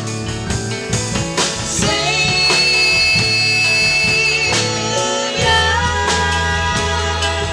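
Live band playing an instrumental passage between sung lines, with drum hits, bass and guitar. A long high note is held from about two seconds in until about four and a half seconds in.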